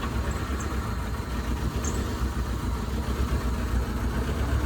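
Car engine with a steady low rumble, running or being cranked, with no breaks.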